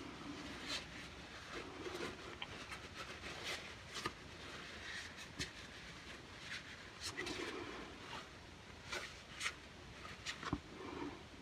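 Faint scattered clicks and light scraping: a cleaning brush worked through the derringer's barrel, with small handling knocks from the gun and cleaning tools.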